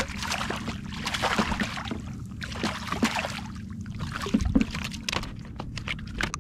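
Water sloshing and lapping against a small boat's hull in irregular swells, with a steady low hum underneath.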